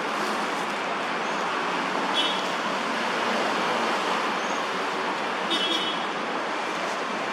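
Steady hum of city road traffic, with two brief high chirps about two seconds in and again about five and a half seconds in.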